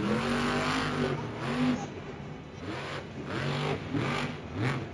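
Monster truck's supercharged V8 revving hard on the dirt, in a long burst of throttle and then several shorter rising-and-falling blips.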